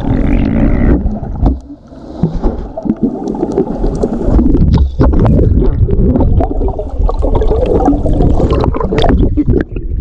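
Muffled water churning and gurgling heard through a submerged action camera's housing, with many small clicks and knocks. A brief lull comes just before two seconds in.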